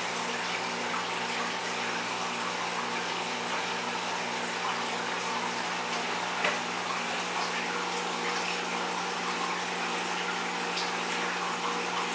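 Aquarium filter and pump running: a steady rush of moving, splashing water over a low, constant motor hum. A single light tap about six and a half seconds in.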